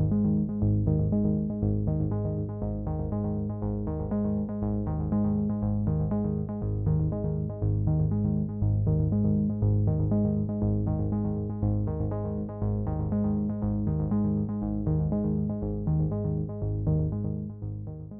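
Background synthesizer music with a steady, even beat, fading out near the end.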